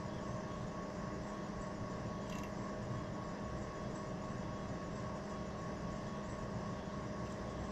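Steady background hum with a hiss and several held tones, like a fan or machine running, and a faint click about two and a half seconds in.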